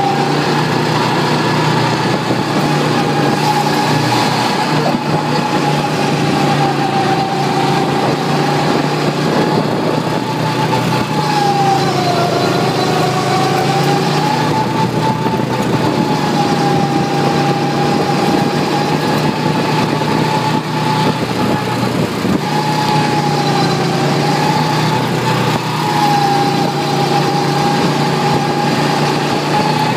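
Go-kart's small engine running under load, a steady whine whose pitch dips and recovers a few times as the kart's speed changes, over a low steady hum.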